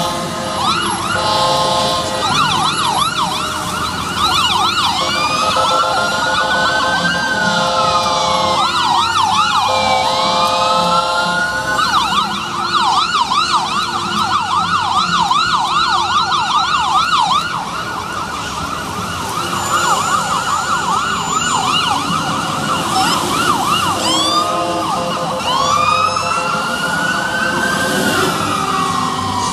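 Sirens of a fire engine and an ambulance responding with lights on: electronic sirens switch between a slow wail that rises and falls and a rapid yelp, sometimes overlapping. Long, steady horn blasts come in between, near the start, around the middle and again near the end.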